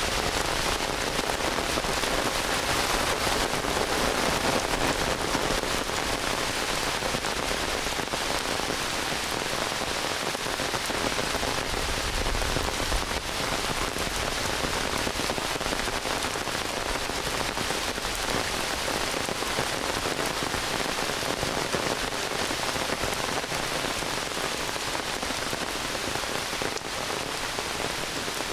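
Heavy rain pouring steadily onto forest foliage and ground: a dense, even hiss of countless drops.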